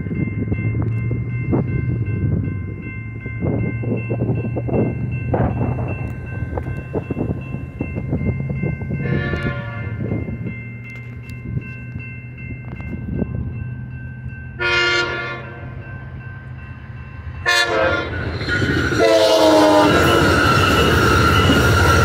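Railroad crossing bell ringing while an Amtrak San Joaquin passenger train approaches and sounds its horn in the grade-crossing pattern: two long blasts, one short and a final long one, the last lower in pitch. Near the end comes the loud rush of the train rolling across the crossing.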